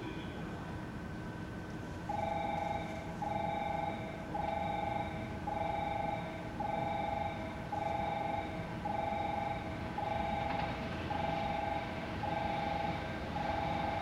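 Repeating electronic warning beep of two close tones, about one long beep a second, starting about two seconds in over a steady background rumble: a railway warning alarm for an approaching train.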